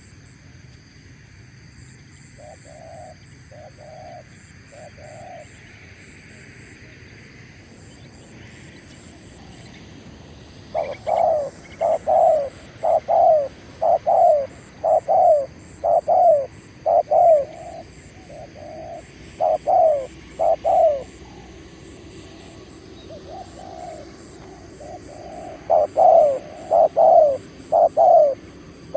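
Spotted dove cooing: three faint coos, then two long runs of loud, falling coo notes at about two a second.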